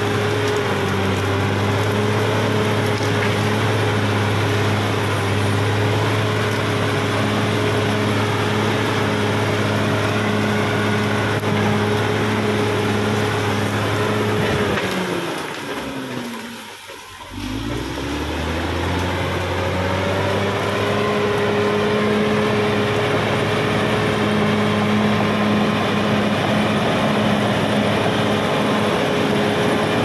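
Caterpillar D6R XL bulldozer's diesel engine running steadily as the dozer pushes earth. About halfway through, the engine sound sags in pitch and fades briefly, then picks back up.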